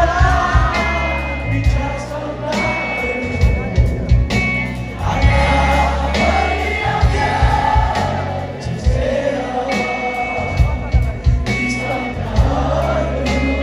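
Live band playing a song with a singer, with heavy bass and frequent drum hits.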